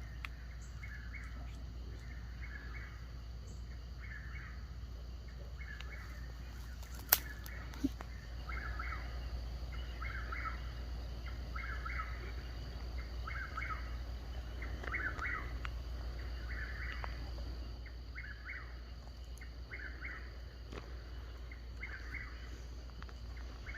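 An animal call repeated steadily outdoors, a short chirp about three times every two seconds, over a low steady rumble. A single sharp click about seven seconds in.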